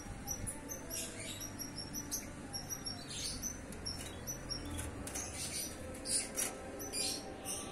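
Four-month-old canary singing: a run of short, high chirping notes. This is the early song of a young bird just beginning to find its voice.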